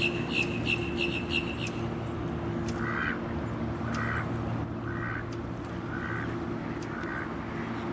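A small bird's quick run of high, even notes, then from about three seconds in a duck quacking about once a second, over a steady low hum.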